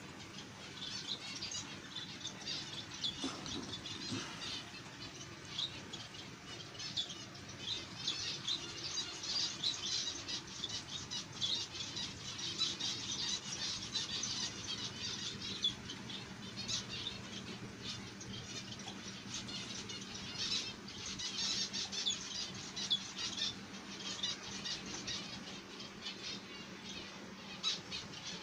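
A roomful of caged zebra finches calling: many short, high chirps overlapping without a break, with wings fluttering in the cages.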